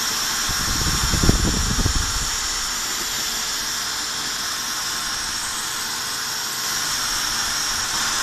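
Vacuum cleaner running steadily with a high hiss, its hose sucking wood chips and dust out of freshly V-bit-engraved lettering. A few knocks and rattles of debris in the hose in the first two seconds.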